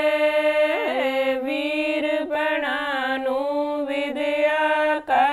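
Women singing a Punjabi folk song without accompaniment, stretching a line into a long held note (a hek) that steps down slightly about a second in and wavers with small turns before breaking off near the end.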